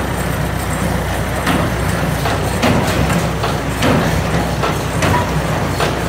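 Tractor engine running steadily at the baler's PTO, with irregular sharp mechanical knocks and clatters on top, about one every half second to a second.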